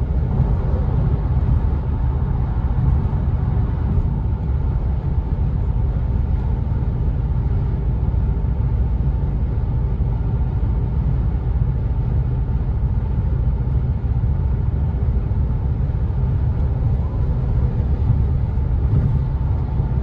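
Audi A5 at around 130 km/h, a steady low rumble from the running gear with a faint steady whine above it: the suspect noise the owner likens to a warped rim. He wonders whether cracked, crumbling rear brake pads are the cause.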